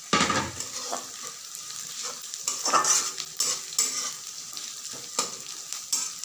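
Chopped onion, garlic, ginger and green chillies sizzling in hot mustard oil in a metal kadhai, with a steady hiss, while a spatula stirs them, scraping the pan in irregular strokes. The loudest scrapes come just after the start and about three seconds in.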